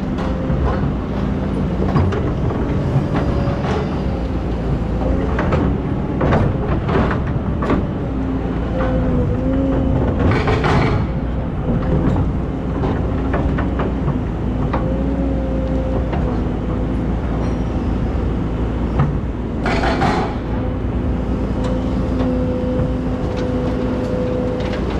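Excavator's diesel engine running steadily under working load, with a whine whose pitch shifts as the machine moves, scattered clanks and knocks, and two short rushing noises about ten and twenty seconds in.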